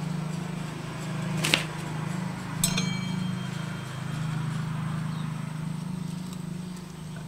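Two sharp metallic clinks about a second apart as a locking clamp is worked on a stuck bolt in a motorcycle's steel brake disc; the second clink rings briefly. A steady low hum runs underneath.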